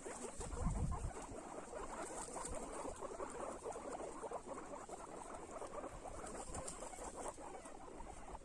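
Guinea pigs eating: many fast little crunching, chewing clicks running together. There is a brief low bump about a second in.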